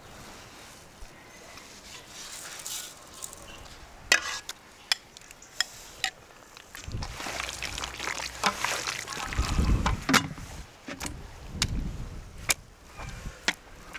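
Hands kneading sliced raw chicken in a wet paprika-and-sauce marinade inside an enamel basin: squishy squelching and smacking, louder and denser in the second half, with sharp slaps scattered through.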